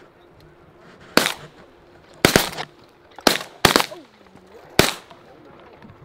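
Several shotguns firing a volley at pigeons on the wing: about seven sharp shots in under four seconds, some in quick pairs.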